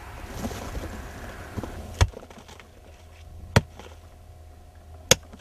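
Three sharp blows about a second and a half apart: a digging tool striking hard earth in a clay pit.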